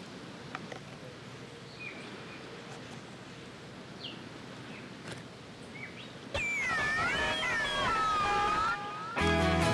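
Quiet outdoor background with a few short chirps, then about six seconds in a loud, long wavering animal cry that glides downward and cuts off abruptly. Plucked guitar music starts near the end.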